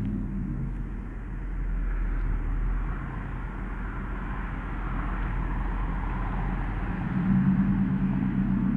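Road traffic: a vehicle passing, its noise swelling and fading through the middle, over a steady low hum that grows stronger again near the end.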